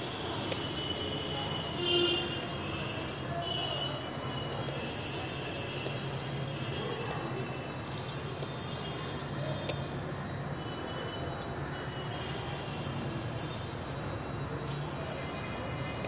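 Bird chirping: about ten short, high chirps at irregular intervals, over a steady low background hum.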